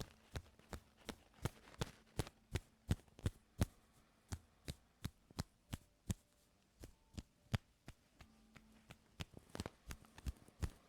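Close-miked ear-cleaning tools working at the ear: a steady run of sharp, irregular clicks and taps, about three a second. A faint low hum comes and goes behind them.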